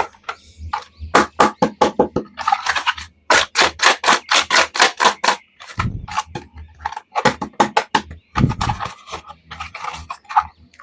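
A quick series of sharp clicks and taps, several a second and densest in the middle, from plastic toy action figures and their packaging being handled.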